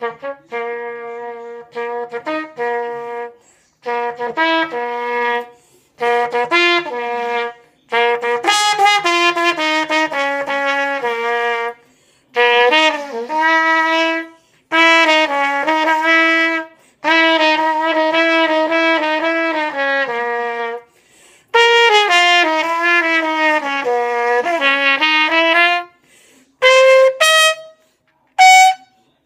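Solo B-flat trumpet improvising jazz: short phrases of notes separated by brief breath pauses, with some notes bending and sliding in pitch.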